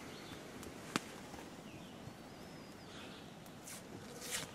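Quiet campsite background with small handling noises: a single sharp click about a second in, and brief rustles near the end. A faint bird call wavers through the middle.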